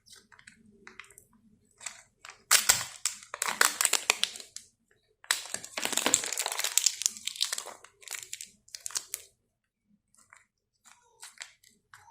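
Candy wrapper being crinkled and crushed by hand, in two long crackly bouts in the middle, with shorter crinkles before and after.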